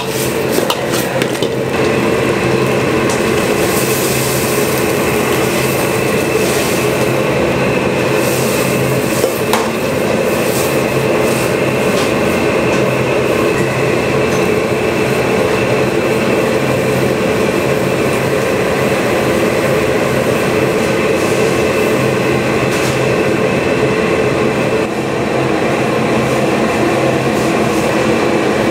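A loud, steady mechanical drone with a low hum, running without a break; a few clinks come in the first two seconds.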